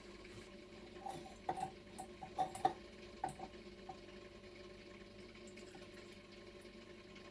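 About a dozen light, irregular clicks and small clinks of hard objects, starting about a second in and ending about four seconds in, over a faint steady hum.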